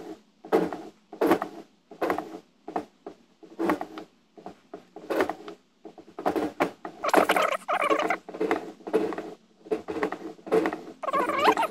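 Shop-made keyway cutter in a Sieg SX2P mini mill's spindle scraping steel from the bore of a toothed HTD pulley, one scrape for every downward push of the quill. It makes a run of short rasping strokes, roughly one or two a second, some ringing with a pitched squeal, and the longest and loudest strokes come in the second half.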